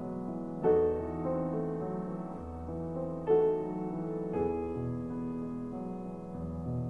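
Solo piano music playing slow, sustained chords, with two louder struck chords about a second in and near the middle.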